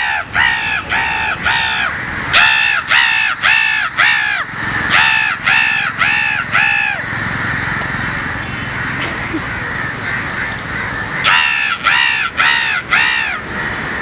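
A man imitating a crow's caw: loud, harsh 'kaa' calls, each rising and falling in pitch, repeated in quick runs of about four. Three runs come back to back, then after a pause of about four seconds one more run comes near the end.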